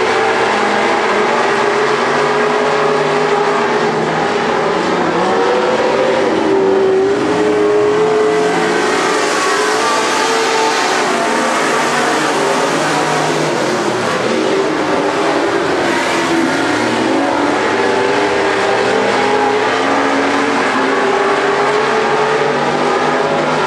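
A field of Grand National dirt-track stock cars racing around the oval, several engines running hard at once, their pitches overlapping and wavering up and down as the cars circle.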